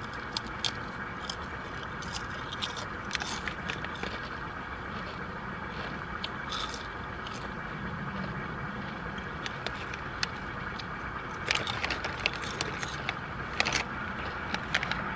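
Wavy potato chips crunching as they are bitten and chewed, with the crinkle of the foil chip bag. The sharp crackles come in scattered clusters, thickest near the end, over a steady background hum.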